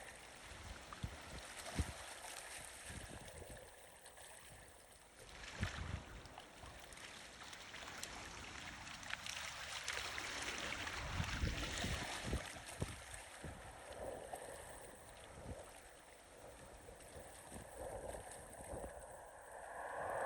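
Gusty wind buffeting the microphone in irregular low rumbles over the steady wash of river water and small waves, the noise rising and falling with the gusts.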